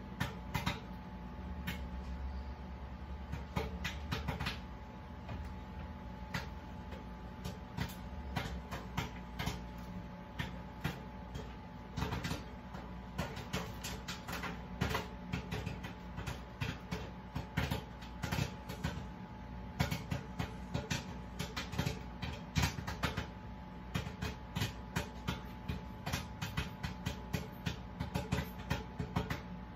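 Microwave oven running with a steady hum while popcorn pops inside. The pops are sparse at first and come thicker and faster from about halfway through.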